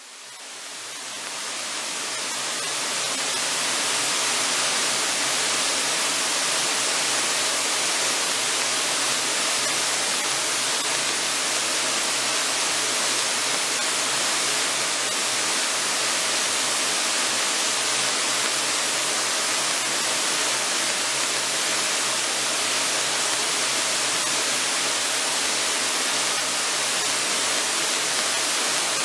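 Cockpit noise of an AeroTrek A240 light sport aircraft in flight: a steady hiss of rushing air with a low engine and propeller drone beneath it, swelling up over the first few seconds.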